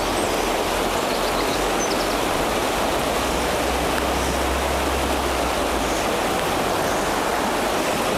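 Fast river water rushing over shallow rapids: a steady, even rush.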